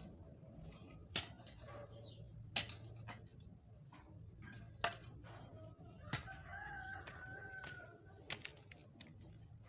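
A rooster crows once, a long held call of about two seconds starting some six seconds in. Three sharp knocks earlier are the loudest sounds.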